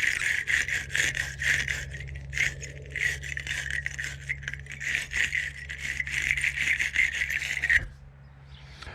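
Wire battery-terminal cleaning brush scrubbing a lead battery terminal with quick back-and-forth scraping strokes, stopping near the end.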